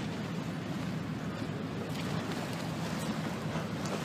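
Choppy sea washing and splashing against a stone embankment, with wind buffeting the microphone as a steady low rumble.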